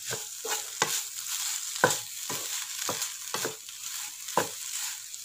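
Wooden spatula stirring and scraping a thick mixture of jackfruit and grated coconut around a nonstick pan, a soft scrape every half second to a second, over a faint steady hiss.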